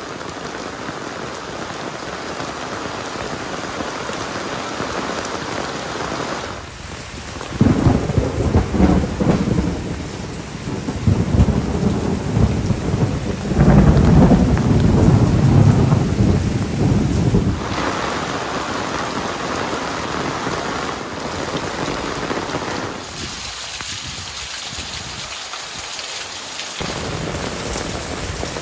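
Heavy rain falling steadily, with a loud low rumble through the middle, from about seven to seventeen seconds in.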